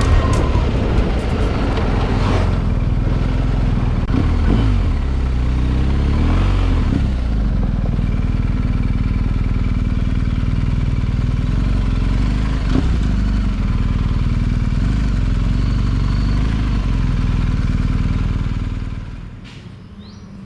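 Motorcycle engine running with some changes in pitch as it is throttled, dropping away sharply near the end.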